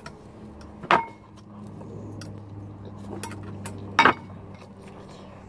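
Chopsticks clinking against ceramic noodle bowls while eating: many faint clicks, with two louder knocks that ring briefly, about a second in and about four seconds in. A steady low hum runs underneath.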